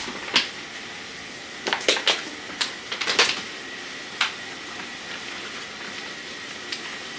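Groceries being handled during unpacking: scattered short clicks and rustles of packaging as items are picked up and set down, bunched in the first half and sparse after.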